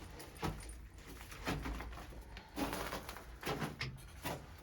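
Footsteps crunching on the rocky floor of a small mine tunnel, about one step a second, with small clicks and rustles of gear and a low rumble of handling on the microphone.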